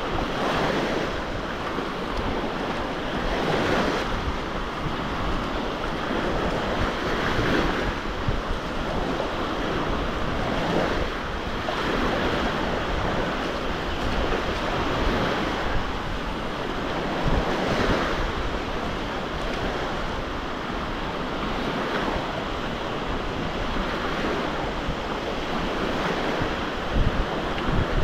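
Black Sea surf: waves breaking on the shore, swelling every few seconds, with wind buffeting the microphone.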